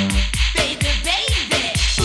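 Electronic dance music with a steady kick drum about twice a second, crisp hi-hats, and sliding, bending synth tones over the beat.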